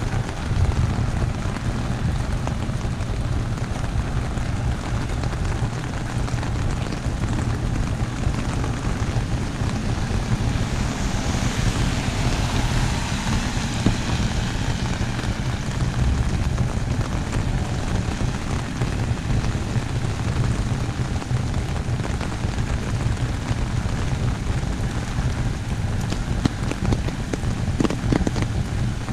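Heavy rain falling steadily on an umbrella held overhead, with the hiss swelling louder for a few seconds about halfway through.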